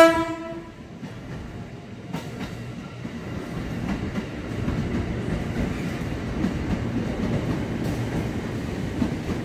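A JR 205 series electric commuter train sounds a short horn blast right at the start, fading within about half a second. Then the train's running noise and wheel-on-rail clatter swell as it rolls along the platform, growing louder from about three seconds in and holding steady.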